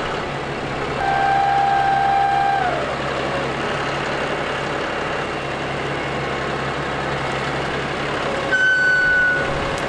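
John Deere utility tractor's diesel engine running steadily under load while working a rear box blade through a pile of dirt. A whine comes in about a second in and falls away in pitch near three seconds, and a shorter, higher whine sounds near the end.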